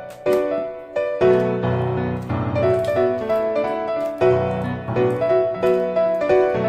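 Background piano music, a gentle melody of separate notes.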